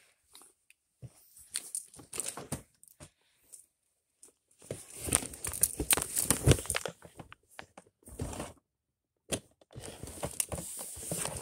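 Irregular bursts of close rustling and crinkling with scattered clicks, loudest from about five to seven seconds in: handling noise right at the phone's microphone.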